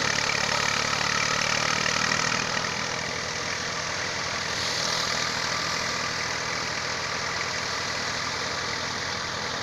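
Tractor-driven paddy thresher running steadily, its threshing drum and blower over the drone of the tractor's diesel engine as paddy bundles are fed in. Louder for the first two seconds or so, with another brief swell about five seconds in.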